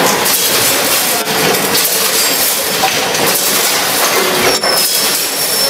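Vertical form-fill-seal oat packaging machine running: a steady, loud mechanical clatter and hiss, broken by a few sharp knocks.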